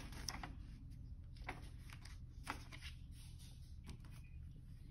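Faint rustle of a picture book's paper page being turned and smoothed flat, with a few soft separate clicks of paper and fingers.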